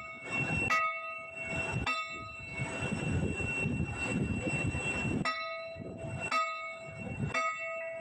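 Hydraulic breaker (backhoe jack hammer) and its steel chisel ringing under sharp metal-on-metal blows: five strikes, each followed by a bell-like ring lasting about a second, with a pause of about three seconds in the middle. A steady low engine rumble runs underneath.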